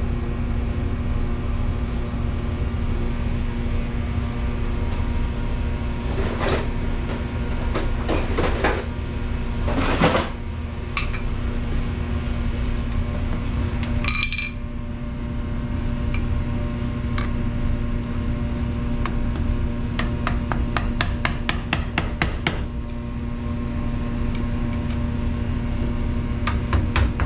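Metal tools clanking and knocking on a commercial dishwasher motor as its housing is taken apart, with one sharp ringing hit about halfway through and runs of quick, even clicking later on, over a steady low hum.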